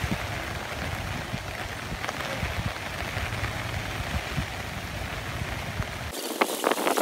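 Steady rain falling and pattering on umbrellas, with a run of sharper taps about six seconds in.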